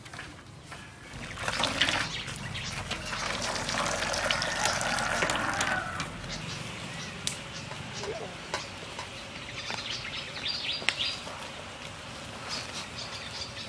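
Hot water splashing and sloshing in a metal basin as a chicken is dunked to scald it, loudest in the first half. Then quieter wet splashing with scattered ticks as the soaked feathers are plucked by hand.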